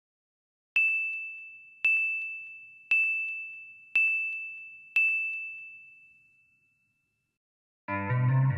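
Five bright ding sound effects about a second apart, all at the same high pitch, each ringing out, one for each checklist item appearing on screen. Guitar music starts near the end.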